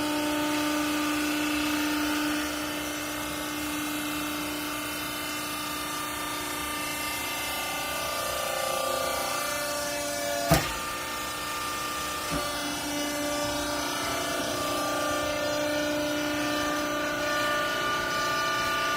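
Garment baler's hydraulic pump running, a steady whine of several tones whose pitch shifts about two seconds in and again around eight seconds. A sharp knock sounds about ten and a half seconds in, and a lighter one near twelve.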